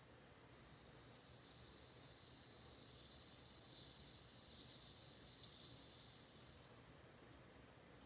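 Japanese bell cricket (suzumushi) singing: one high, ringing trill lasting about six seconds, starting about a second in and stopping abruptly near the end.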